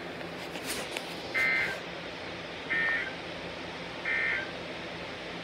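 Emergency Alert System end-of-message data tones: three short, identical bursts of digital data, a little over a second apart, over a steady background hiss and hum. They signal the end of the alert message.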